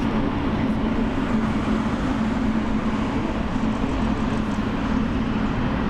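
Steady airport noise: a continuous rumble with a hum low in pitch, from aircraft jet engines running.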